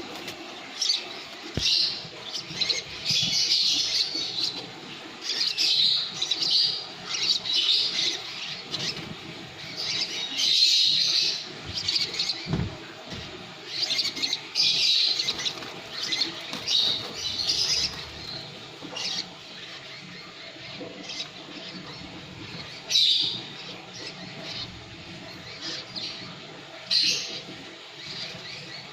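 Lovebird chattering in bursts of rapid high-pitched chirps, the long 'ngekek' song: near-continuous for the first two thirds, then in shorter, sparser bursts.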